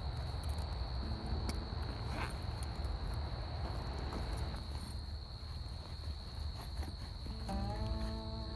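Crickets trilling in one steady high note, over a constant low rumble, with scattered light clicks and rustles. Near the end a lower pitched hum comes in and holds.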